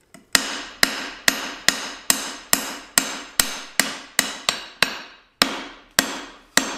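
Hand hammer striking a glowing mild steel bar on an anvil, drawing it down: steady blows a little over two a second, each followed by a short ring, with a brief pause about five seconds in.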